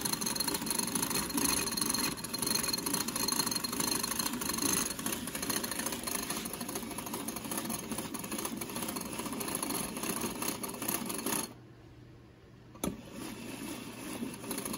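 Coconut cream being whisked by hand in a bowl: a rapid, steady scraping and clattering. It stops abruptly about eleven and a half seconds in, a single tap follows, and fainter whisking resumes near the end.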